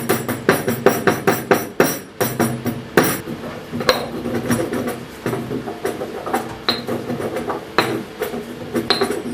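Black peppercorns being pounded and ground: repeated sharp strikes, about three a second at first, then slower, a few of them ringing briefly.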